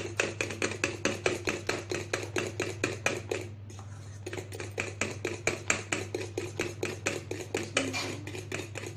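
Metal spoon beating egg whites to a foam in a stainless steel bowl: rapid, even clinks against the bowl, about five or six strokes a second, slackening briefly about halfway through.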